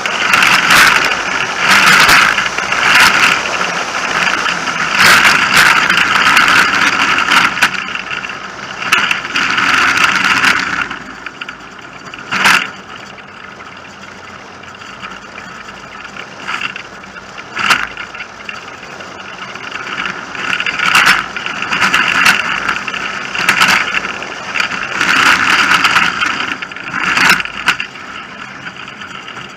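Engineless soapbox cart running downhill on asphalt: a loud rush of wind on the onboard microphone mixed with wheel and body rattle, swelling and easing with speed and quieter through the middle. A few sharp knocks from bumps.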